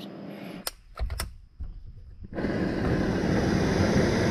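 A few light clicks and knocks, then about halfway in a portable gas camp-stove burner catches and runs with a steady rushing hiss as water is heated for coffee.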